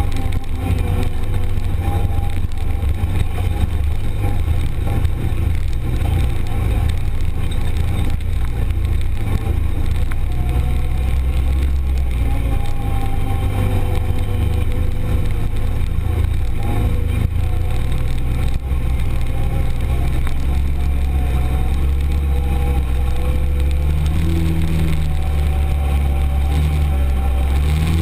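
Arctic Cat Prowler 1000 UTV's V-twin engine running steadily at driving speed on a dirt trail, heard from inside the open cab, with a deep low rumble and a shifting engine note.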